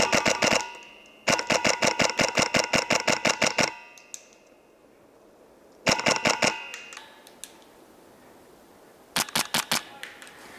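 Polarstar HPA (compressed-air) airsoft rifle firing in rapid bursts of sharp snaps at about seven shots a second. There is a short burst at the start, a long burst of about two and a half seconds beginning a second in, a short burst around six seconds, and another short burst near the end.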